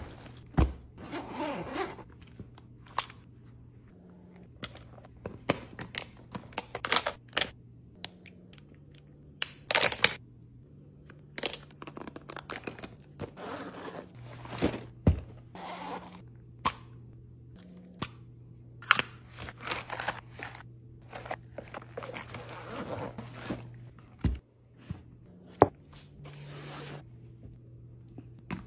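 Hands packing a duffel bag and small cases: irregular rustling, scraping and crinkling with sharp clicks and knocks as items are picked up and set in place. A faint steady low hum runs beneath.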